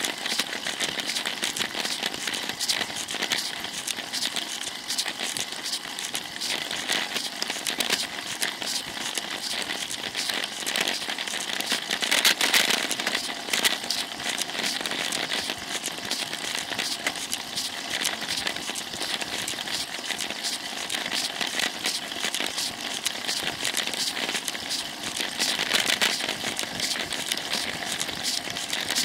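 Wind noise and road rattle on a moving bicycle's Cycliq camera microphone: a steady rush with dense crackling from the camera housing vibrating. It runs on with no break.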